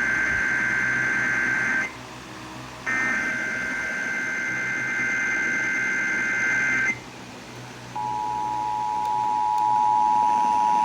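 Emergency Alert System signal played over a radio: two bursts of the SAME digital header, a harsh two-pitch data screech, one ending about 2 seconds in and a second from about 3 to 7 seconds. Then, after a one-second gap, the steady two-tone EAS attention signal starts about 8 seconds in, announcing the AMBER Alert child abduction emergency.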